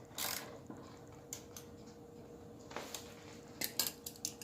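Scattered metallic clicks and clinks of hand tools and chain working on a mini bike's drive chain as it is tightened, with a quick run of clicks near the end.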